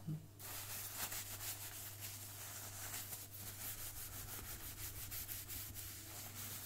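Paper towel rubbed hard back and forth over the plinth of a Technics SL1210MK2 turntable, a rapid run of dry scuffing strokes starting about half a second in.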